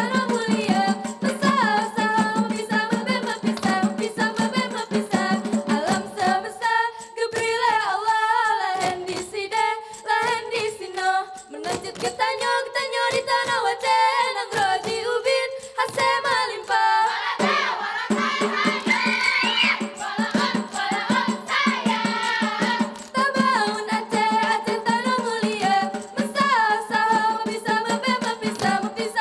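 Ratoh Jaroe, the Acehnese seated group dance: a chorus of female voices singing in unison over fast, tightly synchronised hand claps and slaps on the chest and body. Around seven to twelve seconds in, the clapping turns choppy, in short bursts with brief gaps.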